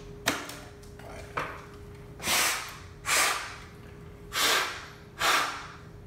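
A smoke detector head being twisted off its ceiling base with two plastic clicks, then four short puffs of breath blown into it to clear out the aerosol test smoke.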